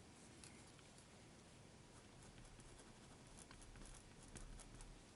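Faint scratching and small ticks of a Muji 0.5 mm bamboo mechanical pencil with HB lead writing letters on paper, the strokes thickest about three and a half seconds in.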